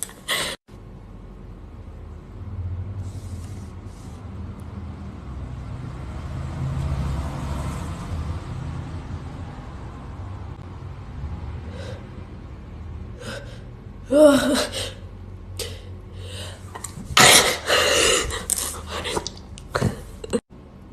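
A person's sharp gasping in-breaths as a sneeze builds, then a loud sneeze near the end, followed by shorter breaths.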